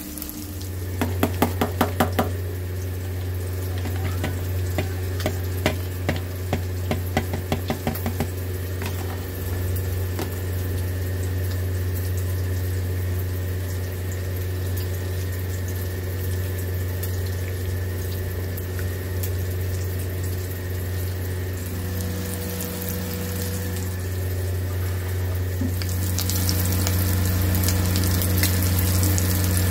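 Fish-roe fritters frying in hot oil: a steady sizzle with a run of sharp crackles and pops over the first several seconds, the roe bursting in the oil. A steady low hum runs underneath, and the sizzle grows louder and brighter near the end.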